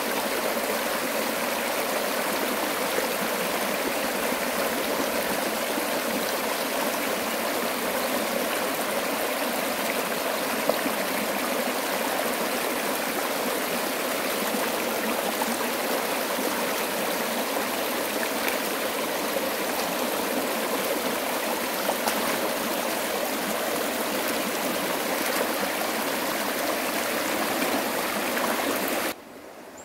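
Steady rush of running water, even throughout and cutting off abruptly near the end.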